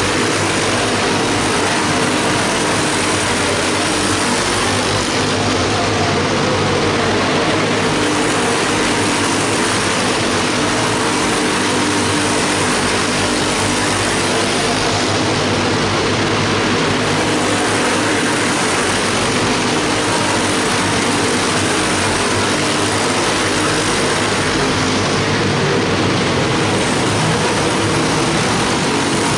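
A pack of small single-seat race cars running laps, their small engines buzzing together without a break, the pitch of each wavering as they go round and the sound dipping slightly about every ten seconds.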